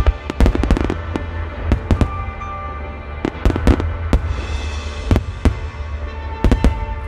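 Aerial firework shells bursting in quick volleys, sharp bangs coming in clusters several times, with music playing steadily underneath.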